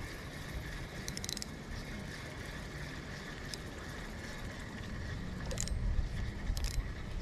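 Spinning reel being cranked while reeling in a small hooked fish: a steady whir from the reel, with a few sharp clicks and a low rumble underneath.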